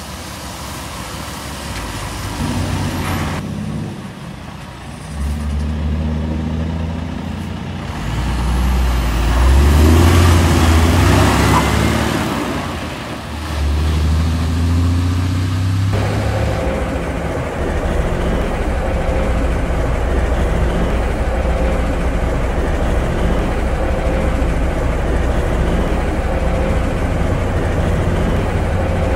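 Heavy diesel semi-trucks driving past one after another, their engines pulling and changing pitch, with tyres hissing on wet pavement at the loudest pass. A little over halfway through the sound switches abruptly to a steady diesel engine drone heard from inside a truck cab.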